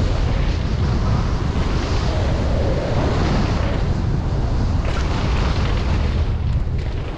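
Wind rushing over a helmet-mounted camera's microphone as a mountain bike rides fast over dirt jumps, a steady low buffeting rumble.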